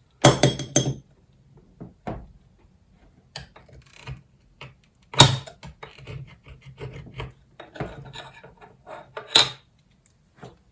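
Soldering iron tip scraping and prying at gold-plated contacts on a mobile phone circuit board: irregular short scrapes and clicks, with a few louder scrapes near the start, about five seconds in, and near the end.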